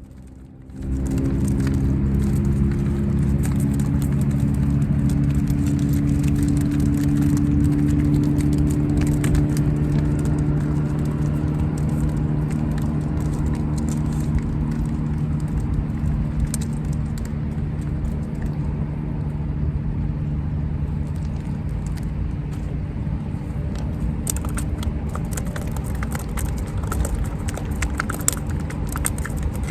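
A motor engine running steadily with a low, even hum, coming in abruptly about a second in; light clicks and rattles near the end.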